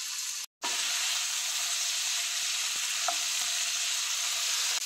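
Chunks of carrot, celery and garlic sautéing in a cast-iron pot with a steady sizzle, stirred with a wooden spoon, with a couple of light spoon ticks. The sound cuts out for a moment about half a second in, then resumes a little louder.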